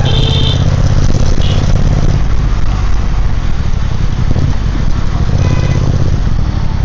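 Triumph Speed Twin 1200's parallel-twin engine and exhaust running steadily, easing off briefly about two seconds in before picking up again.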